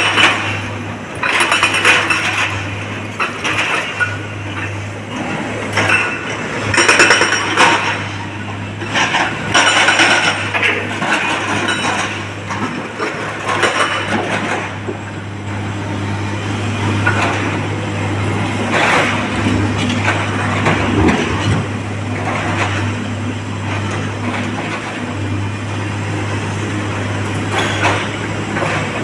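Rock dropped from a SANY excavator's bucket into a steel dump-truck body, clattering and clanking in several separate bursts over a steady low diesel engine hum.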